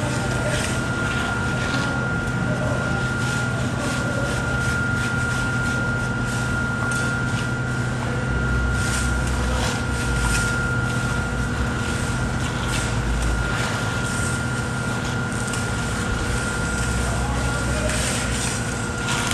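Steady machinery hum with a constant whine, under repeated short scraping strokes of hand trowels on wet concrete.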